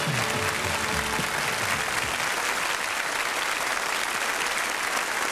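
Studio audience applauding, with the last notes of a pop song fading out in the first couple of seconds.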